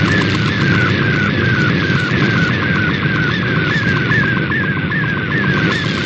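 Shortwave reception of an MFSK digital image transmission: a single data tone warbling in a repeating pattern about two or three times a second, over loud static and interference hum from local QRM.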